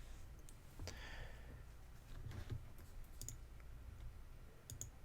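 Faint computer mouse clicks over quiet room tone: a single click about a second in, then two quick double clicks, one past the middle and one near the end.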